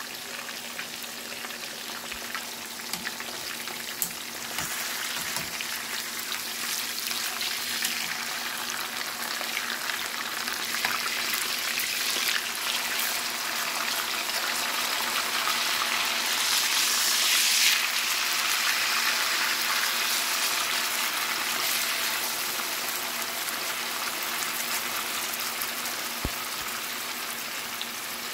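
Marinated pork chops sizzling in a frying pan with garlic butter, a steady hiss with scattered pops and crackles; the sizzle swells louder a little past halfway, then settles. A faint steady hum runs underneath.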